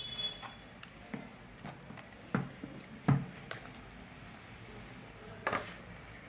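Hands handling a smartphone and its retail box: scattered light taps and knocks, the sharpest about two and a half and three seconds in.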